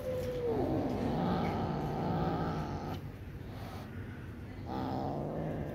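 A cat growling, a long low growl of about two and a half seconds followed near the end by a second, shorter one. This is typical of a cat guarding its food while eating.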